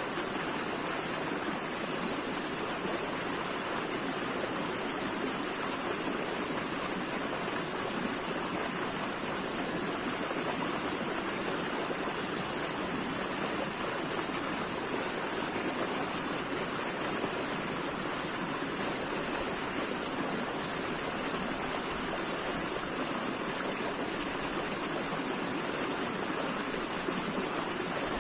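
Running water, a steady unbroken rush with a bright hiss on top.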